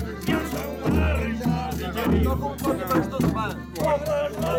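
Folk music with a regular deep drum beat and rattling percussion, with voices over it.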